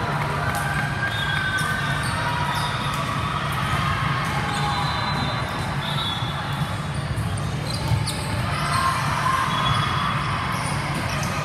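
Echoing din of an indoor volleyball hall: balls struck and bouncing, scattered short high squeaks, and distant voices over a steady low hum.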